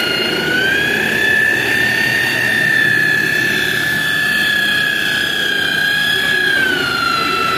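Handheld electric rotary polisher running with its pad pressed on a plastic car headlight lens, buffing out the yellowing. A steady motor whine that rises slightly in pitch about a second in and drops again near the end.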